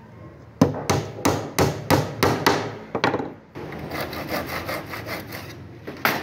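A claw hammer strikes about seven sharp blows, roughly three a second, driving a nail into a wooden door frame. Then a hand saw cuts through the wood in quick, even rasping strokes, with a sharp knock near the end.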